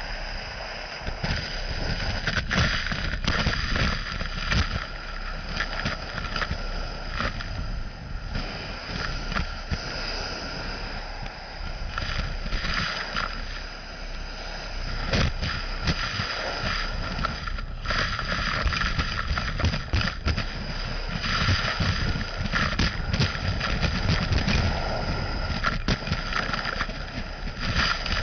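Gutter vacuum system running with a steady whine over a low rumble, with frequent clicks and knocks as the nozzle takes up moss and debris from the gutter.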